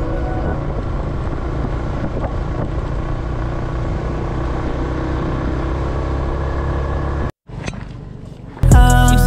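Motorcycle engine running at a steady speed while riding, with road noise. It cuts off abruptly about seven seconds in, and after a short quieter stretch hip hop music starts near the end.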